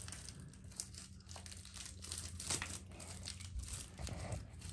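Thin plastic wrapping crinkling in irregular bursts as it is handled and picked at on a small plastic candy toy.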